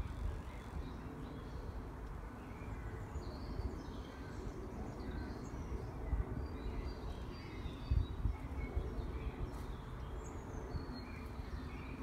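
Small birds singing and chirping in short scattered phrases, over a steady low rumble.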